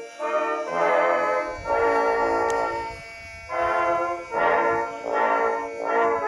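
Background music: held, chord-like notes in phrases of about a second each, with a short quieter break about three seconds in.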